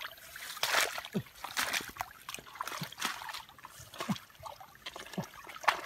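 Muddy water trickling and splashing while hands scoop and pack wet mud around a bamboo fish trap, with irregular wet slaps and several short gurgling plops.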